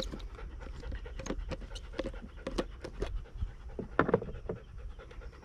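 Small toy poodle panting in quick, irregular breaths, with a louder patch about four seconds in.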